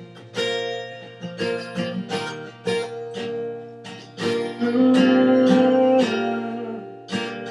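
Acoustic guitar strumming a series of chords, some struck sharply and some held, as the intro of a song.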